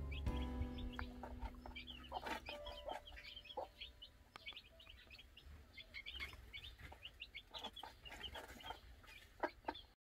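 Newly hatched chicks peeping in many quick short chirps, with a white silkie hen clucking now and then.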